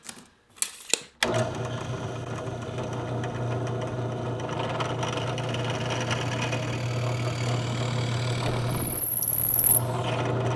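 Electric drill running steadily as it bores holes in an ash-wood handle, starting about a second in after a couple of clicks. A brief high-pitched whine rises a little before the end.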